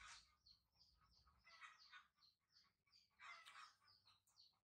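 Faint chirping of birds: quick, high-pitched chirps coming in repeated clusters.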